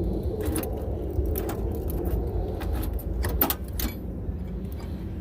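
Keys jangling on a key ring, with several sharp clicks from a key being worked in a 1986 Ford Mustang LX's passenger door lock.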